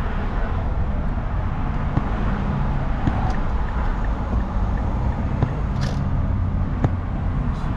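Steady road and engine noise of a car driving on a highway, heard from inside the cabin.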